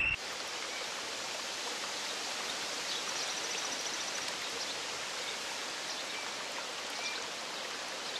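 Steady rush of a stream's running water, with a faint high trill about three seconds in and a few faint chirps.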